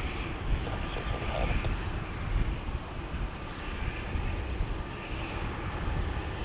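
Bombardier CRJ-200 regional jet taxiing on its two rear-mounted turbofans: a steady jet rumble with a faint high whine over it.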